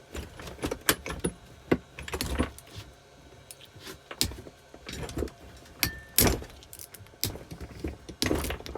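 Irregular metallic clinks and knocks of hand tools, a socket and loose steel nuts being handled on a motorcycle engine, with a short metallic ring about six seconds in.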